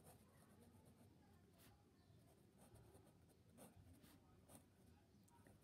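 Faint scratching of a pen writing on ruled notebook paper, in short, irregular strokes.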